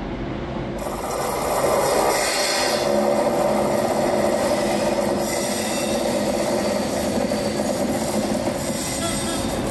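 Train running along the rails: a steady rasping rumble of wheels on track, growing louder about a second in.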